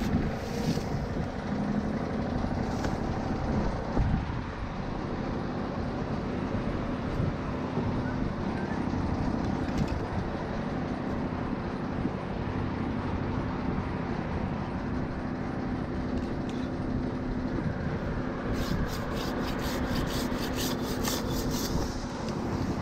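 Engine of a GTM wood chipper running steadily at a constant pitch. Near the end, a handsaw cuts a birch branch in quick, even strokes, about four a second.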